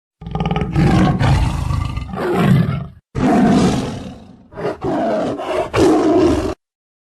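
A big cat roaring and growling in two long stretches, each starting and stopping abruptly.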